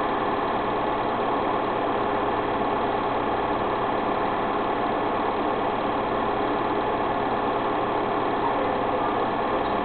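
Steady mechanical hum with several fixed tones, even and unchanging in level.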